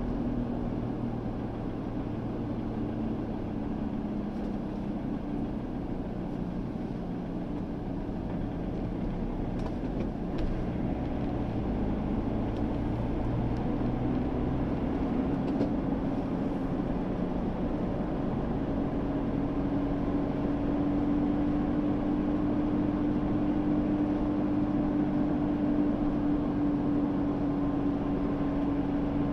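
Car engine and road noise heard from inside the cabin while driving on a city road. The engine note dips slightly, then climbs and holds steadier through the second half.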